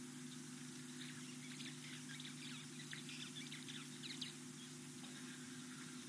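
Faint chirping of small birds: a flurry of short, high notes, thickest in the middle, over a steady low hum.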